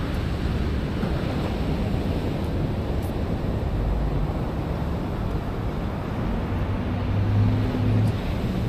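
Road traffic noise, with a vehicle's engine hum growing louder and passing about seven seconds in.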